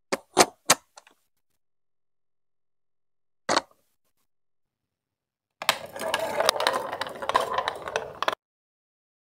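Plastic Duplo building pieces clicking into place: three quick snaps at the start and one more about three and a half seconds in. Then a marble rolls and rattles along a plastic marble-run track for nearly three seconds and stops abruptly.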